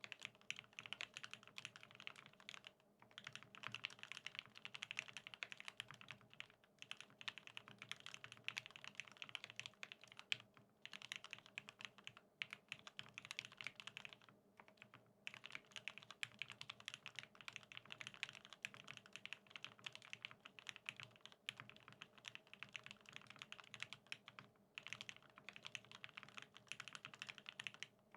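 Fast, continuous typing on a BAEBAE TKL mechanical keyboard with lubed OA switches on an aluminium plate and NCR G81-3077 keycaps: a dense run of key clicks broken by short pauses every few seconds.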